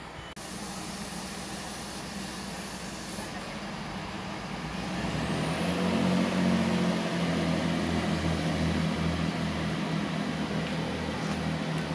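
Underfloor diesel engines of a Turbo diesel multiple unit powering up as the train pulls away from the platform. From about five seconds in, the low engine drone grows louder and pulses, with a thin high whine rising above it.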